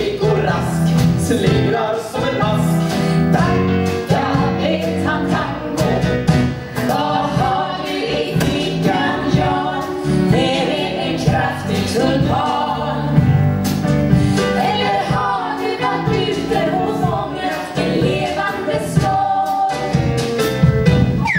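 Stage revue song: several voices singing together over instrumental accompaniment with a regular beat.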